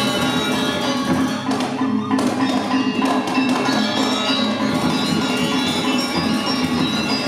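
Balinese gamelan playing: bronze metallophones and gongs struck in a dense, busy texture of ringing tones.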